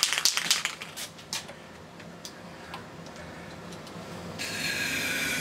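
A few light clicks and taps, then, about four seconds in, an aerosol can of Tri-Flow lubricant spraying a steady hiss for about a second at the outboard's carburetor.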